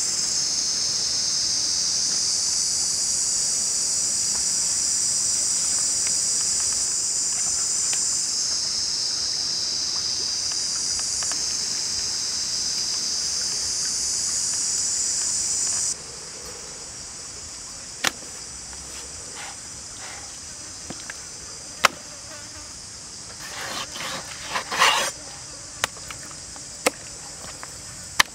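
Loud, steady high-pitched insect chorus that cuts off abruptly about halfway through. A fainter insect chorus follows, with a few scattered sharp knocks and a short cluster of taps.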